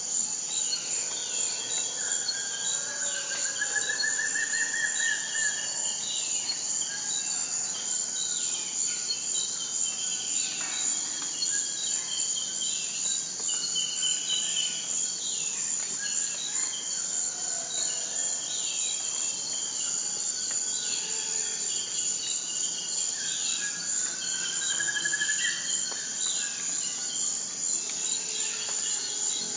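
A steady, high-pitched chorus of insects with birds calling over it: many short falling calls and, twice, a rising trill.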